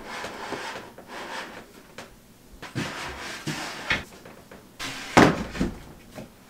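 Shelf boards being slid into a bookcase and set in place: rubbing scrapes of board against the cabinet and a few wooden knocks, the loudest about five seconds in.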